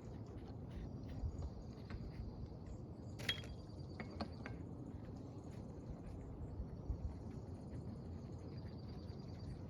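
A few light clicks about three to four and a half seconds in, over a steady low background noise and faint high chirping.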